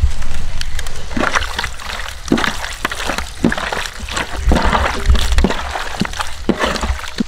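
Hands working salt and turmeric into pieces of sailfish in a bowl: irregular wet squelching and sloshing, with a low rumble underneath.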